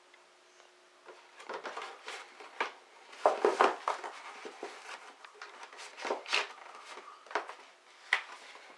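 A cat clawing, batting and shoving a cardboard beer case across carpet: irregular scrapes and crinkly rustles, loudest about three and a half seconds in.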